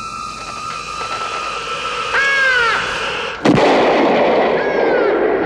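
A rising wash of noise with two high, arching cries that fall in pitch, and a single sharp bang about three and a half seconds in, after which the noise is louder.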